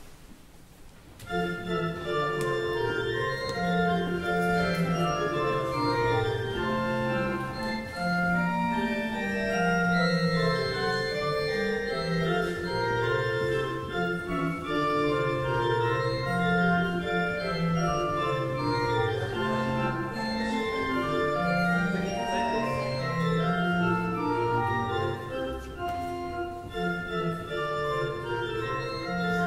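Church organ playing the closing voluntary, coming in about a second in with sustained chords over a moving bass line.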